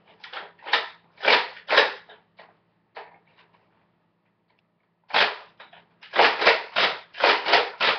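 A boy making shooting noises with his mouth: short hissing 'kshh' bursts, a few spaced out at first, then a quick volley of about three a second from five seconds in.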